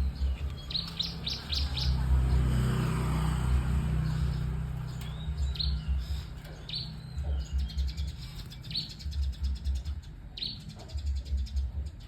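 White-rumped shama (murai batu) singing: short, bright whistled notes and quick trills, repeated in phrases, over a low pulsing rumble.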